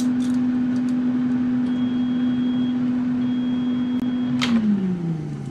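Instant Vortex Plus air fryer oven's fan running with a steady hum; two faint high beeps come in the middle as the cook cycle ends. Near the end there is a click and the fan winds down, its pitch falling.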